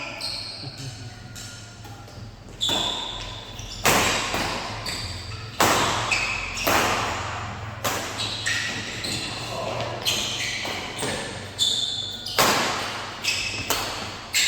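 A badminton rally in an echoing hall: sharp racket-on-shuttlecock hits about once a second, starting a couple of seconds in, with short high squeaks between them.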